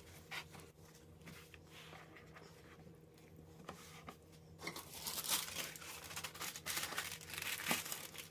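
Kitchen paper rustling and crinkling as it is handled around a raw turkey: faint scattered rustles at first, growing louder and busier about halfway through.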